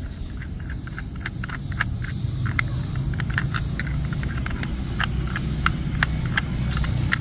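Small screwdriver turning the screw on the plastic underside cover of a Plarail toy train, a run of small irregular clicks, several a second. A steady low rumble runs underneath.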